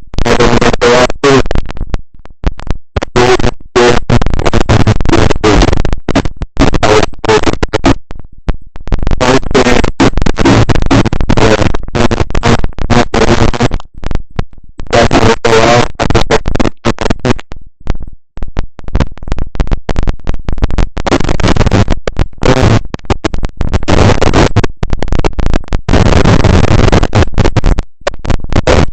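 Loud, harsh static from a faulty microphone, crackling continuously and cutting out in many brief dropouts.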